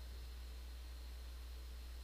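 Near silence: a steady low hum with faint hiss and no distinct events.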